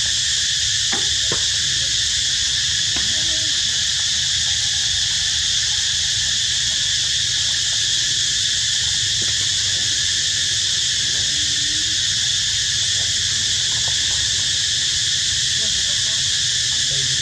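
Steady, unbroken chorus of insects such as cicadas or crickets, with a few faint short squeaks and clicks.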